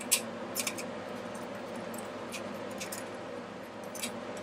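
Sharp, scattered metallic clicks and ticks, the loudest at the very start, as parts on a vacuum-tube television chassis are handled, over a steady low hum.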